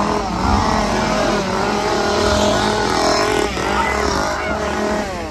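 Petrol chainsaw engine revving over and over, its pitch rising and falling, then dropping away near the end.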